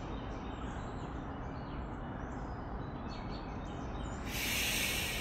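Steady low outdoor background with faint bird chirps. About four seconds in, an airy rush of breath begins: a slow exhale through the lips in a counted breathing exercise.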